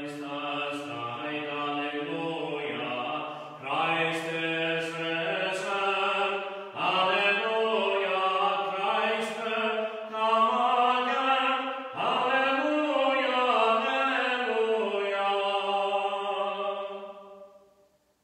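A single voice singing a slow, chant-like melody in about four long phrases of held notes, fading out near the end.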